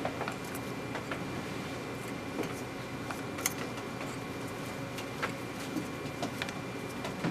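Small metal scraper working excess paraffin wax off the sides of a plastic tissue-cassette block: faint scraping with scattered light clicks, one sharper click about three and a half seconds in, over a steady background hum.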